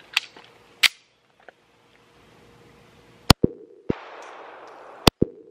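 Two sharp metallic clicks as a magazine is loaded into an SCCY CPX-3 .380 ACP pistol, then two shots from it about two seconds apart, each followed by a brief ring from the steel targets.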